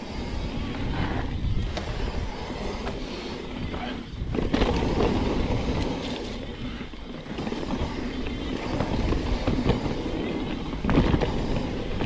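Specialized Stumpjumper Evo mountain bike rolling fast down a rough dirt trail: a continuous rumble and rattle of the tyres and bike over the bumps, with louder jolts about four and eleven seconds in.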